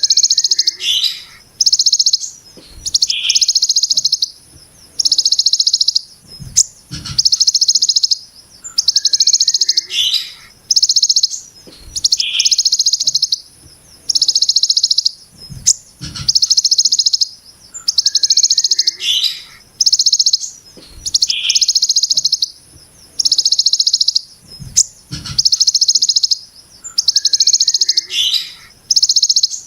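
Kolibri ninja (sunbird) singing the rapid, harsh 'brem' buzz phrases of the ciblek gunung: dense, high buzzy bursts about a second long, repeated every second or two, with short sharper chirps between them and a few dull low knocks.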